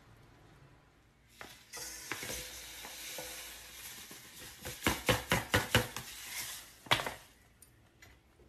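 Dry semolina poured from a packet into a stainless steel mixing bowl: a steady hissing pour with the packet rustling, then a quick run of about seven sharp taps against the bowl and one more tap near the end.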